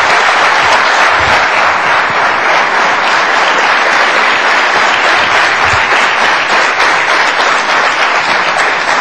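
Studio audience applauding, a dense steady clapping that holds at one level throughout.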